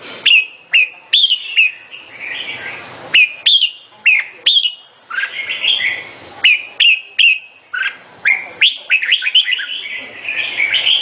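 Red-whiskered bulbul singing: quick strings of short, clear chirping notes, several sweeping sharply in pitch, repeated with brief pauses between phrases.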